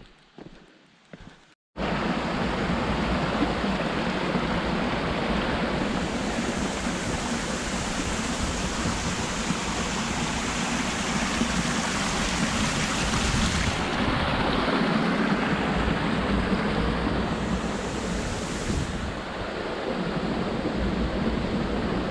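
A few quiet footsteps, then after a cut about two seconds in, a loud, steady rush of falling water from a waterfall.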